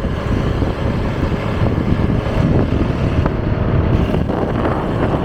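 Wind buffeting the microphone over the steady running noise of a vehicle on the move, a dense low rumble with no break.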